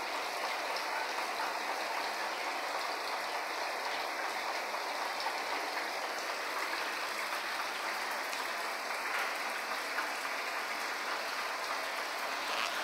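Shower running: a steady, even hiss of water spray.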